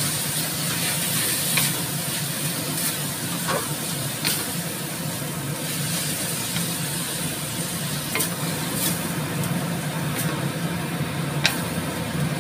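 Yellow noodles and vegetables sizzling in a stainless steel wok as they are stir-fried with a wooden spatula, with scattered knocks and scrapes of the spatula against the pan. A steady low hum runs underneath.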